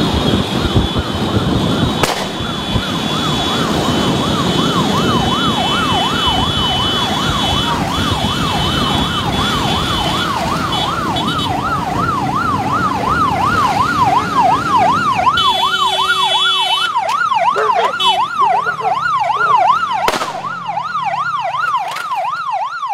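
Electronic siren warbling fast, rising and falling about three times a second, over engine and wind noise from a moving motorbike. The road noise drops away about two-thirds of the way through, leaving the siren clearer.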